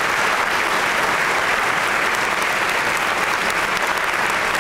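Audience applauding, a steady, even clapping from many hands.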